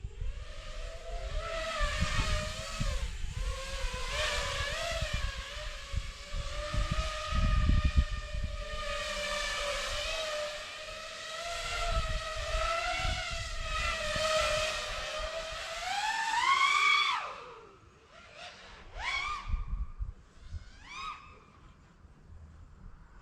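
Nazgul Evoque F6D FPV quadcopter's motors and propellers whining in flight, the pitch wavering up and down with the throttle, with gusty wind rumble on the microphone. About 17 s in the whine climbs sharply on a throttle punch and then cuts back, followed by two short rising blips of throttle.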